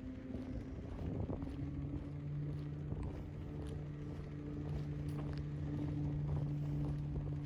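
A motor engine running with a steady low hum that sets in about a second and a half in and grows slightly louder, over a low outdoor rumble with a few faint clicks.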